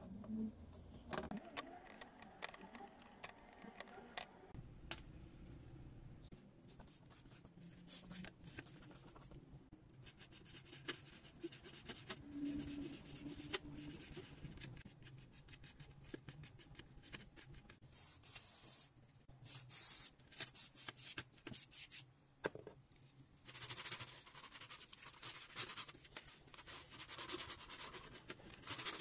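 A plastic brush scrubbing a rusty coil spring in quick scratchy strokes, with a cloth rubbing a dirty metal rod at the start. Two longer hissing stretches come in the second half.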